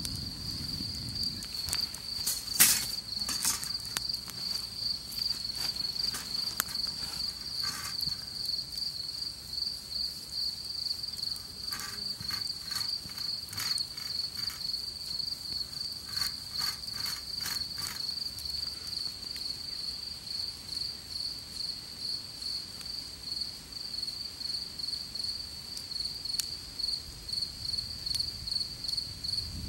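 Crickets chirping steadily in the grass, a fast unbroken pulsing trill. Over it come scattered clicks and light metallic taps from a wire grill over campfire embers being handled, most of them between about 12 and 18 seconds in.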